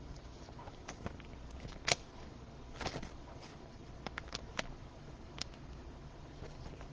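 Faint rustling and small clicks as a trading card is handled and slid into a plastic card sleeve, with a few sharper plastic ticks near 2 and 3 seconds in.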